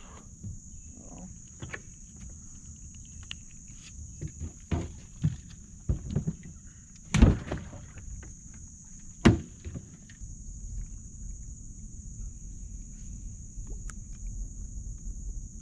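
A steady high-pitched drone of insects runs through the whole clip. Over it come scattered knocks and thumps of gear being handled in an aluminum jon boat, the loudest about seven seconds in and again about two seconds later.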